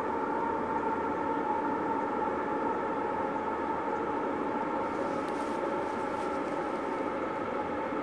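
Union Pacific coal train approaching from a distance: a steady drone of several held tones over an even low rumble.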